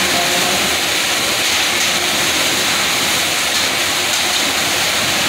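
Steady, loud rushing hiss with no beat or pauses, like running machinery or flowing material.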